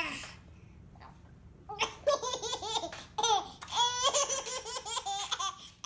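Baby laughing hard in a long run of short, high-pitched bursts, starting about two seconds in after a brief pause.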